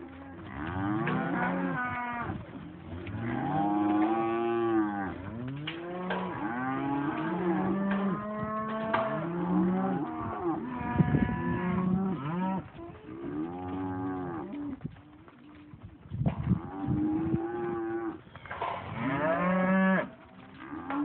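Angus steers mooing and bellowing, many overlapping calls one after another with a short lull about two-thirds of the way through. A few sharp knocks come in among the calls around the middle and later.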